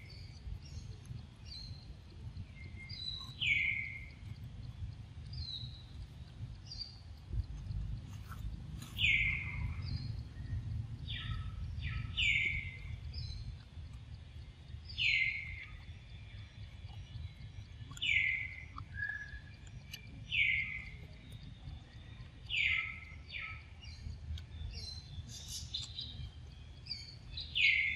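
A forest bird calling over and over, each call a short note falling in pitch, repeated roughly every two to three seconds, with a fainter higher chirp often just before it. A steady low rumble lies underneath.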